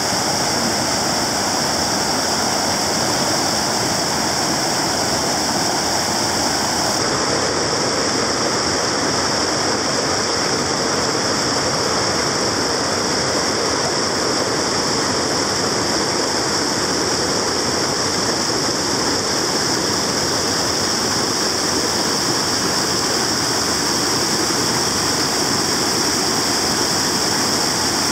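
Muddy floodwater of a swollen creek rushing over and around a corrugated plastic culvert pipe, a steady churning rush of water.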